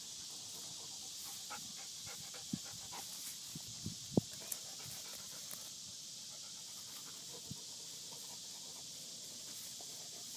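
A dog panting steadily close by, with a few short sharp clicks, two of them standing out about two and a half and four seconds in.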